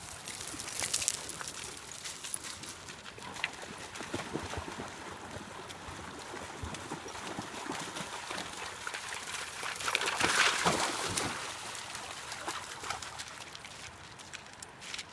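Labrador puppies' paws clattering over river pebbles and splashing through shallow water, with many small clicks of stones; the splashing is loudest a little past the middle.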